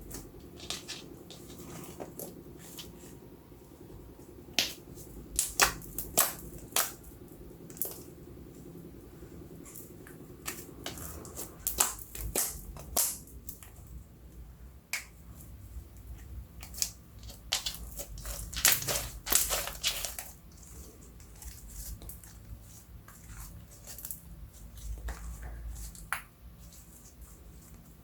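Slime being squished and mixed, giving irregular sharp clicks and pops, some in quick clusters.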